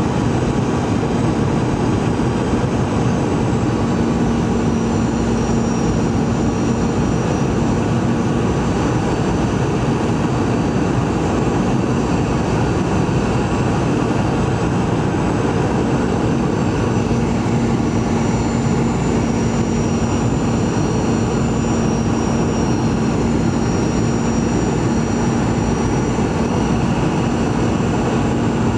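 Cabin noise inside a Boeing 717 descending on approach: a steady roar of airflow and its two rear-mounted Rolls-Royce BR715 turbofans, with a steady low hum and a faint high whine that drifts slightly in pitch.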